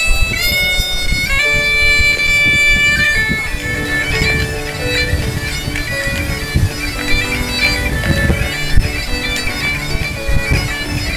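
Bagpipes playing a tune: long held notes at first, then a moving melody over a steady drone, with a low irregular rumbling noise underneath.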